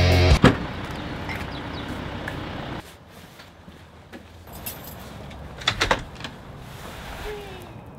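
A car door shutting, then quieter outdoor ambience with keys jangling and clicking at a house door.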